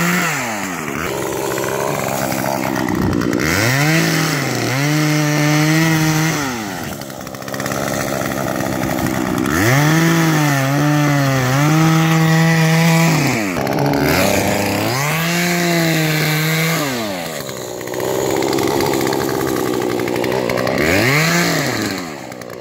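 Chainsaw cutting into lake ice about a foot thick. Its pitch sags again and again as the bar bogs down in the cut, then climbs back as it frees up.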